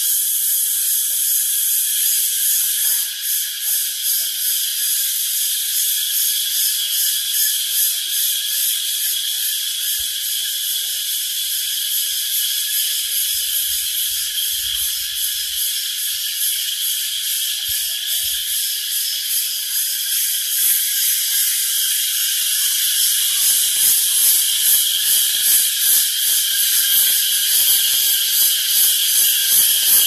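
Loud chorus of many crickets chirping, a dense high-pitched ringing in several layered tones with a fast pulsing texture. The pulsing swells and grows more pronounced in the last third.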